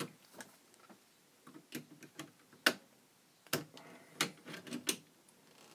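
Irregular small sharp clicks and taps of hand tools working the nut and washer off a rotary switch shaft in a vintage stereo receiver's chassis, about eight in all, the sharpest near the middle.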